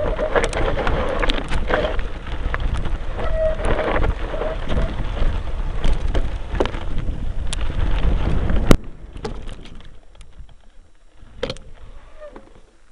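Front-mounted camera on a mountain bike riding a rough dirt trail: continuous rumble and rattle from the trail and the mount, full of sharp knocks. About nine seconds in a sharp knock comes, and the noise drops to a much quieter hiss with scattered clicks and rustles.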